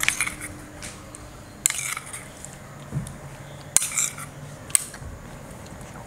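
A metal serving spoon scraping and clinking against a small metal kadai as curry is scooped out, a few separate sharp clinks and scrapes spaced out over several seconds.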